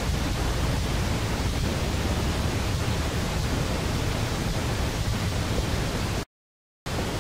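Steady rushing noise, heaviest in the low end, that breaks off into dead silence for about half a second near the end.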